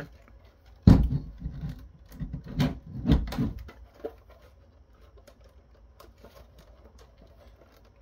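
Plastic case of an Acer Aspire Revo R3610 mini PC being handled and turned over on a tabletop: a sharp knock about a second in, then a run of knocks and clicks for a few seconds, then only faint light clicks.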